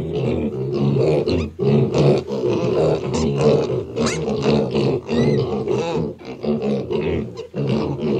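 A group of six-week-old piglets grunting, many short calls overlapping with hardly a break, a few of them higher and sharper.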